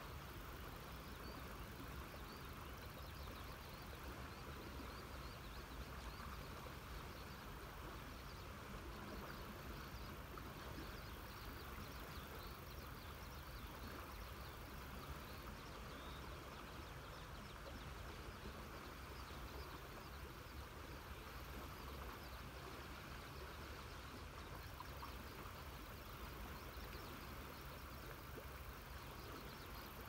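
A river flowing with a steady, even rush, and faint small chirps scattered over it.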